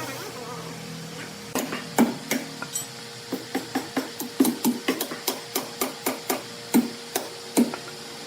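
A run of about twenty sharp knocks, steadying to about four a second in the middle, over a steady machine hum.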